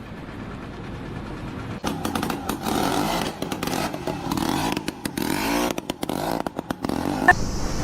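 An engine running and revving unevenly, with knocks and clatter, starting about two seconds in.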